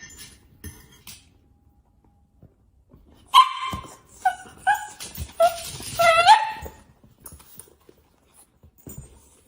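A dog barking: about five short, high barks in quick succession a few seconds in, the last one rising in pitch.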